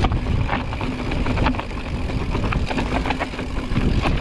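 Mountain bike riding down a steep, technical rocky trail: a continuous low rumble with frequent sharp clatters as the tyres and frame hit rock.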